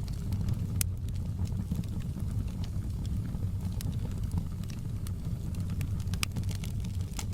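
Wood fire burning in a fireplace: a steady low rumble of the flames with irregular crackles and small pops, a sharper pop about a second in and another near the end.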